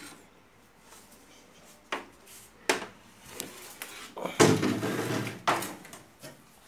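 Plastic CRT TV chassis with its circuit board being handled and shifted: a few sharp knocks, then a louder scraping rattle from about four seconds in.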